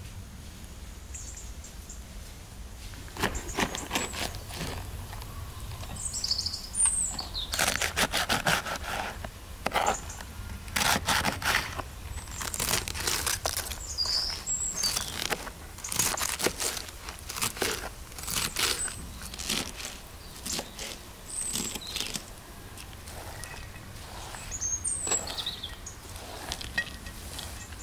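A kitchen knife cutting through a head of cabbage on a plastic cutting board: from about three seconds in, a long run of short, crisp cuts in irregular clusters. Birds chirp now and then.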